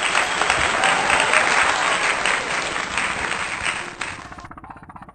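Loud applause with a few cheering voices, which cuts off abruptly about four seconds in. A quieter, low, rapidly pulsing hum follows.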